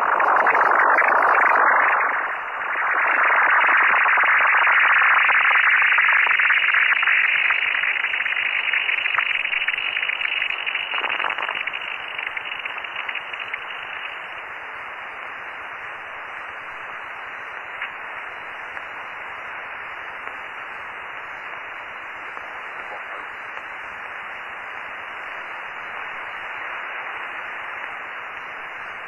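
Receiver audio from a Yaesu FT-950 on the 10-metre amateur band: a loud, strange rushing noise of unknown origin fills the receiver's narrow audio band, then fades about twelve seconds in to a lower, steady band hiss.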